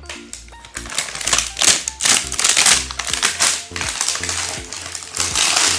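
Clear plastic packaging crinkling and rustling in bursts as it is handled, over background music.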